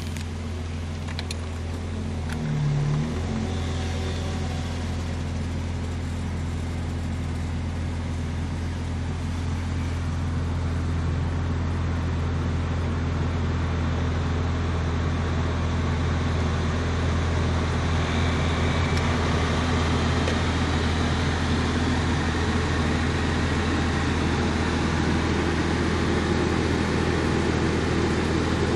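Mazda KF-ZE 2.0-litre V6 idling steadily at about 1,000 rpm while still cold, heard from inside the car's cabin. A brief louder moment comes about two to three seconds in.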